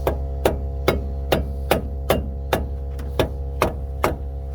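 Steady hammering on a truck's wheel hub assembly, about ten sharp metal-ringing blows a little over two a second, done to drive out the stuck hub. A steady low electrical hum runs underneath.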